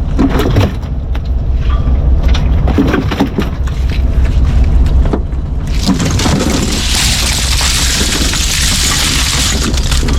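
Fishing boat's engine running with a steady low hum, with irregular knocks and clatter on deck, and a hissing rush from about seven to nine and a half seconds in.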